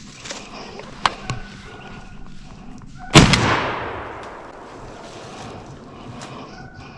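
A single shotgun blast about three seconds in, loud and sudden, its echo rolling away over about a second.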